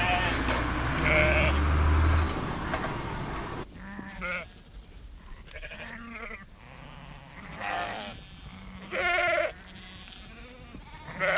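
Sheep bleating: several separate wavering bleats a second or two apart. A low, steady rumble is loudest at the start and stops about two seconds in.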